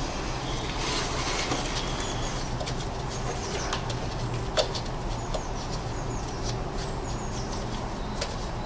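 Small birds chirping in short high calls over a steady low hum, with scattered light clicks and one sharper click about halfway through.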